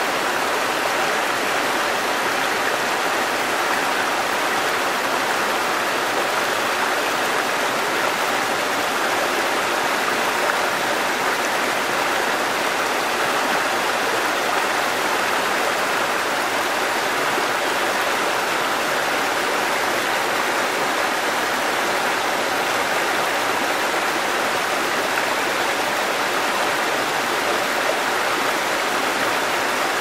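Shallow rocky stream running over small cascades between boulders: a steady, even rush and splash of water.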